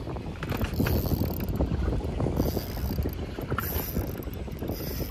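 Spinning reel being cranked, its gears giving a fast, even clicking, with wind rumbling on the microphone.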